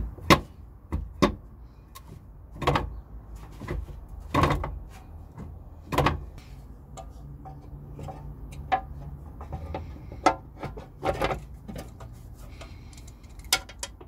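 Irregular metallic clicks, clanks and knocks of parts being handled and fitted under a van floor: the gear-shifter linkage and its sheet-metal cover box being put back in place, with a sharp click near the end.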